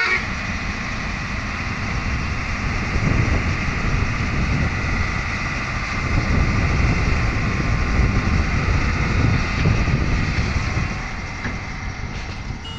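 Heavy diesel machinery running steadily with a deep rumble, growing somewhat louder in the middle and easing off near the end.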